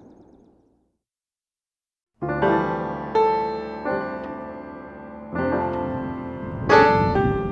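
The fading tail of a loud boom dies away, followed by about a second and a half of silence. Then piano music begins: sustained chords struck about once a second, each ringing on and slowly fading.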